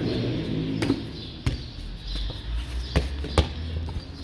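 A football being struck back and forth between barefoot players over a plastic table: four sharp smacks of the ball, the last two close together about three seconds in.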